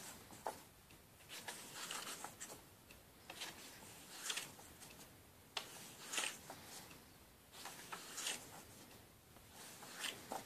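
Paper pages of a comic book being turned and smoothed by hand: a soft paper swish every second or two.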